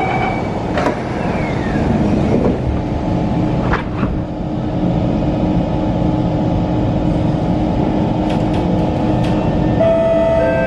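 Inside a C151 MRT train at a station: the last notes of the door-closing chime, the doors shutting with a knock about four seconds in, then a steady carriage hum until the traction motors start a rising whine near the end as the train pulls away.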